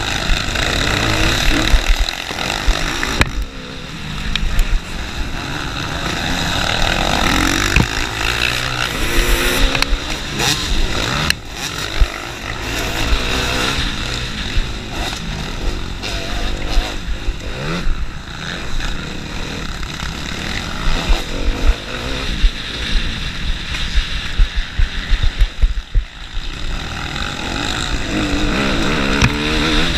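Motocross dirt bike engine heard from on board, revving hard and dropping back again and again as it accelerates and shifts through the gears, with other dirt bikes running close ahead.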